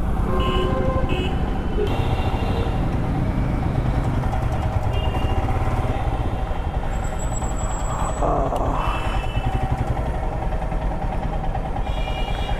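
Royal Enfield Himalayan 411's single-cylinder engine running steadily at low riding speed through city traffic. Short horn toots from other traffic sound a few times, and there is a brief hissing rush about eight seconds in.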